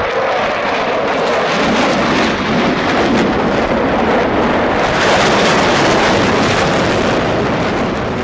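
Loud, steady rushing aircraft engine noise that swells slightly about five seconds in.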